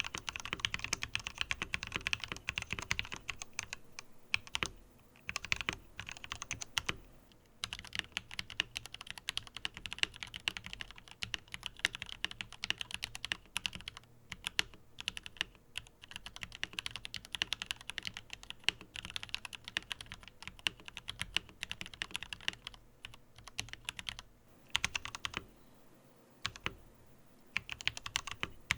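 Steady, fast typing on a Tom680 mechanical keyboard fitted with aftermarket keycaps, a rapid run of key clacks. The typing breaks off briefly a few times, with a longer pause near the end.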